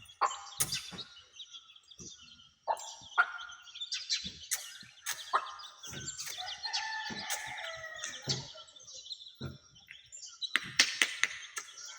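A mother hen clucking among her chicks' high-pitched peeping, with a longer drawn-out hen call around the middle. Scattered short sharp taps are mixed in.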